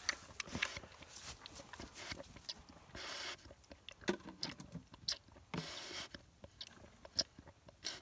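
A pig eating wet, milk-soaked fermented grain from a feed tub: irregular wet smacking, slurping and chewing. A couple of longer, hiss-like bursts come about three and six seconds in.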